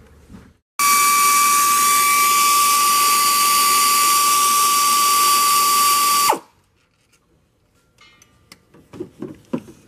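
Air ratchet running in one steady burst of about five and a half seconds, a hiss with a steady whine, spinning out the water pump's Torx retaining screws; it starts and cuts off abruptly. A few faint clicks follow near the end.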